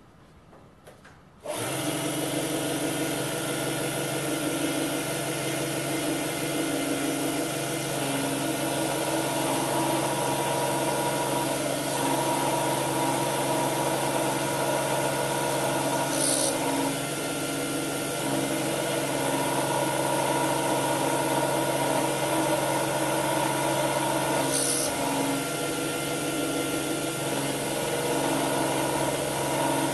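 A 775 DC hobby motor spindle, run at 20 V, starts about a second and a half in and runs steadily while its 4 mm high-speed-steel end mill cuts a brass pin. Two brief high ticks come around the middle and near the end.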